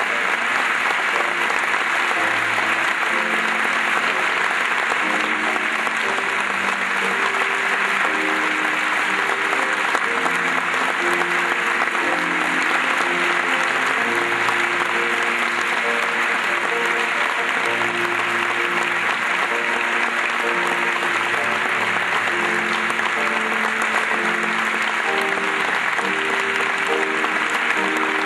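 An audience applauding steadily, without a break, while instrumental music plays a slow melody of held notes.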